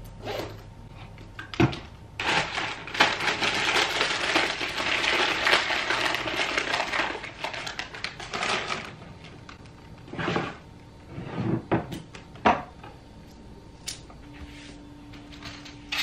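Small household items being handled and put away on a dresser: several seconds of steady rustling and clicking, then a few separate knocks as things are set down.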